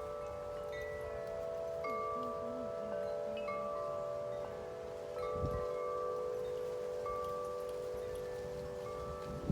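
Wind chimes ringing in strong wind: the tubes are struck again and again, with fresh strikes about every second over long, overlapping ringing tones. Gusts buffet the microphone a little past halfway and near the end.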